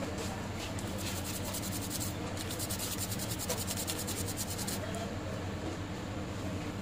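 Quick, even back-and-forth scraping of a tool over a phone circuit board: scattered scratches at first, then a fast run of strokes, about ten a second, for a couple of seconds, over a steady low hum.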